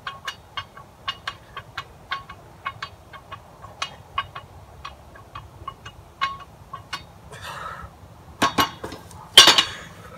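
Light, irregular clicking and clinking during fast bench-press reps with an empty 45-lb barbell, about two to three clicks a second. Near the end come two louder metal clanks as the bar is set back onto the rack's hooks, the second the loudest.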